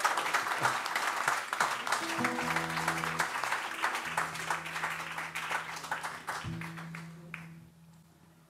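Audience applauding, the clapping thinning out and fading away over several seconds, with steady low held notes sounding beneath it from about two seconds in.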